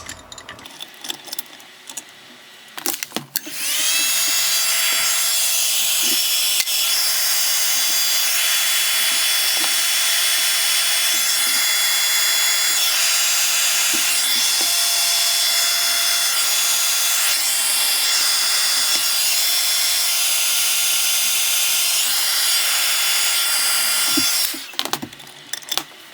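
Heat gun switched on a few seconds in, its fan whining up to speed and then blowing with a steady loud rushing hiss for about twenty seconds before it is switched off. It is warming a plastic trigger part so it can be bent straight.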